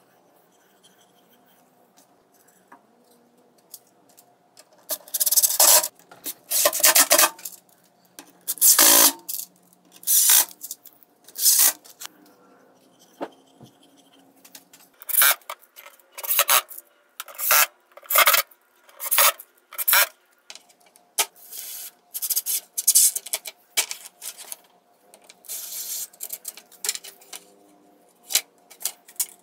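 A series of short, loud rasping and rubbing noises from hand work on wood and metal parts at a workbench, coming irregularly, each under a second long, starting about five seconds in.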